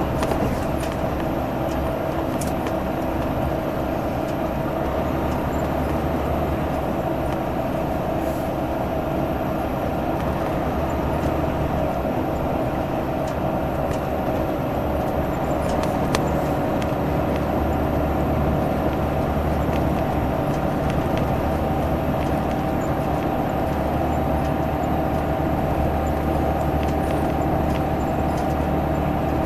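Bus engine roaring at a steady cruise on the highway, an even, unbroken drone with a strong hum and no gear changes.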